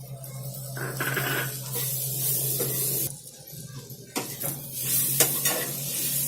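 Green peas sizzling in hot oil in a pan, the hiss swelling for a couple of seconds at a time as a spoon stirs them, with a few sharp clicks of the spoon on the pan.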